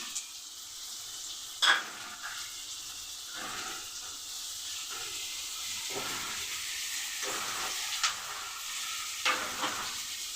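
Onions, tomato and fenugreek leaves sizzling steadily in hot oil in a pan while being stirred. A spoon knocks sharply against the pan three times, about two seconds in, near eight seconds and just after nine seconds.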